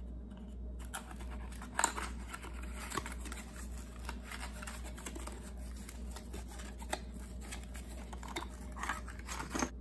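Small, old cardboard ammunition packet being worked open by hand: quiet rustling and scraping of stiff cardboard, with a few light ticks.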